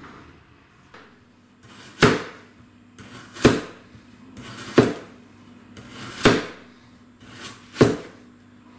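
Large restored meat knife slicing through a potato onto a wooden cutting board: five cuts about a second and a half apart, each a short swish through the potato ending in a sharp knock of the blade on the board.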